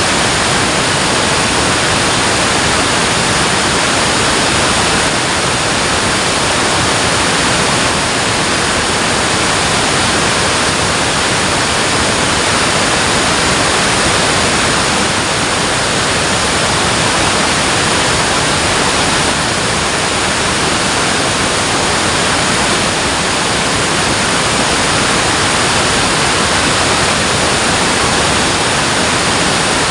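Dam water rushing in a loud, unbroken steady roar of falling and churning water.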